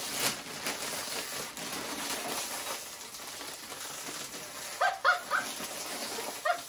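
Plastic snack bags, a Chex Mix bag and a Gardetto's bag, being pulled open and crinkled. A dog yips briefly about five seconds in and again near the end.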